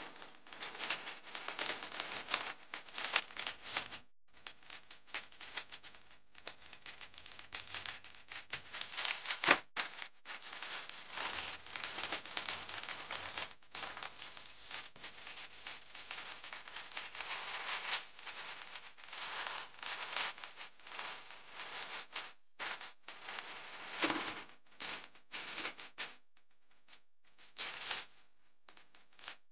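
Thin plastic packaging crinkling and rustling as hands handle clear plastic sleeves and a pink plastic mailer bag, in irregular bursts with short pauses, thinning out near the end.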